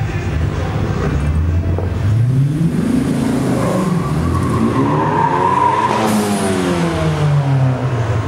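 Performance cars accelerating hard past one after another. The engine note climbs in pitch, is loudest as a car passes close about six seconds in, then drops in pitch and fades.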